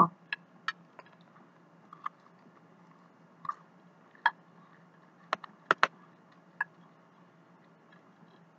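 Sparse, sharp clicks and taps of eating, a few coming in quick pairs: a metal fork picking through French fries on a plate, with chewing.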